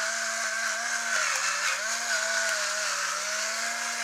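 Electric pepper grinder running: a steady motor whine over a grinding hiss, its pitch wavering a little as it grinds peppercorns.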